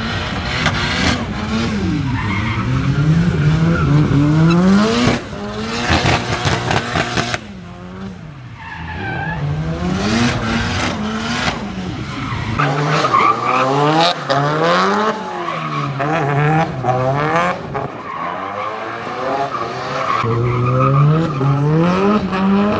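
Turbocharged Nissan Silvia S14 drifting on a wet skid pad. Its engine revs climb and drop again and again, about every two seconds, mixed with tyre skid noise.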